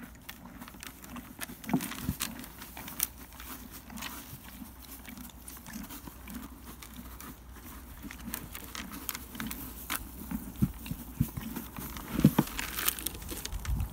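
A horse eating a grain feed mix from a plastic bucket: irregular crunching and clicking as it chews, with a few louder knocks near the end.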